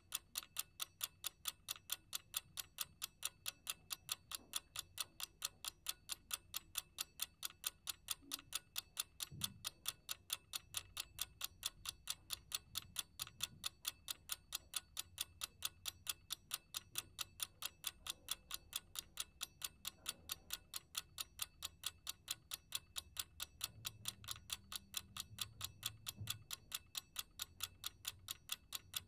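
Steady, even ticking, about three ticks a second.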